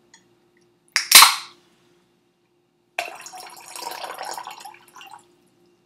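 Aluminium can of seltzer cracked open by its pull tab: a sharp click and a short hiss of escaping carbonation about a second in. From about three seconds in, the seltzer is poured from the can into a glass jar, pouring and fizzing for about two seconds.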